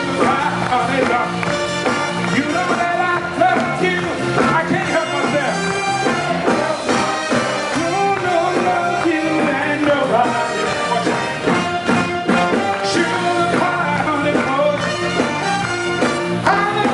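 A male singer performing live with a band, singing over a steady beat.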